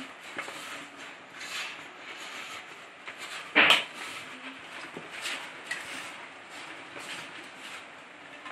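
Hands rubbing and crumbling semolina dough against the bottom of a metal pot: soft, repeated scraping rustles, with one loud sharp knock about three and a half seconds in.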